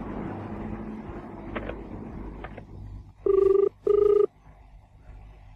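Telephone ringback tone as a call is placed: a few faint clicks, then about three seconds in a double ring, two short steady buzzes in quick succession.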